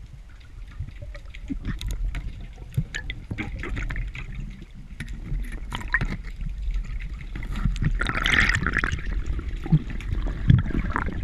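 Water noise picked up underwater by a GoPro in its housing: a steady low rumble and scattered sharp clicks and knocks, with a louder rush of water about eight seconds in as the diver swims up toward the surface.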